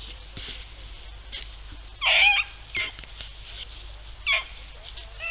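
Rabbit hounds baying while working a rabbit's trail: three short cries, the loudest about two seconds in, over rustling of dry brush and leaves.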